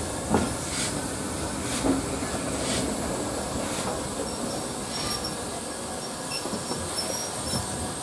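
Passenger carriage of a steam-hauled heritage train rolling slowly through a station, its wheels clicking over rail joints about once a second. From about four seconds in there are short, thin, high-pitched squeals from the wheels.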